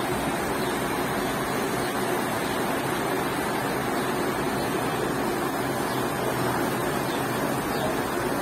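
Zayandeh River water rushing steadily over a low weir step in the riverbed, a constant even rush with no breaks.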